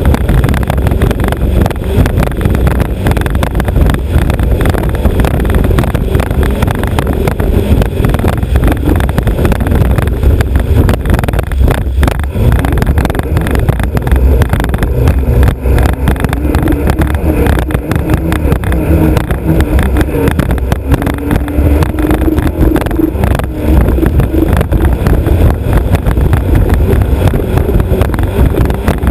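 Alfa Romeo Autodelta 2.5-litre V6 of a historic racing hydroplane running at speed, loud and steady, heard from the bow with wind and water rush over the microphone. Its note climbs a little about halfway through.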